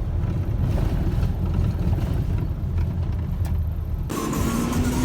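4x4 vehicle driving: a steady low engine and road rumble.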